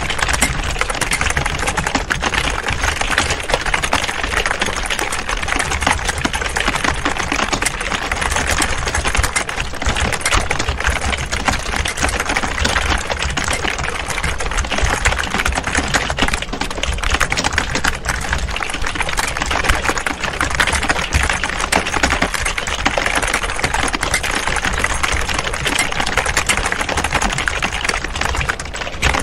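Many people typing at once on computer keyboards: a dense, continuous clatter of key clicks with no pauses, over a low steady hum.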